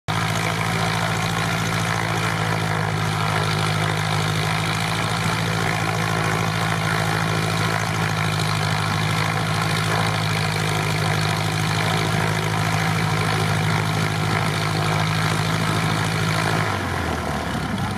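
Light aircraft's four-cylinder Continental O-200 engine and propeller running steadily on the ground at low power, with an even low drone. The engine note drops lower near the end.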